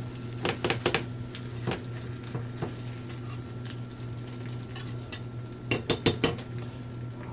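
Pepperoni and cheese sizzling in a skillet while a slotted metal spatula scrapes and taps against the pan's edge, working loose a quesadilla that has been sticking. The scrapes come in a few scattered strokes early on and a quick cluster about six seconds in.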